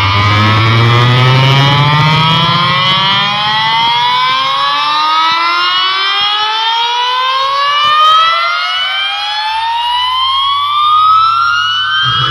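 Loud electronic siren-like riser: one slow, steady upward pitch sweep with several overtones climbing across about twelve seconds, over a low bass rumble that fades out in the first few seconds.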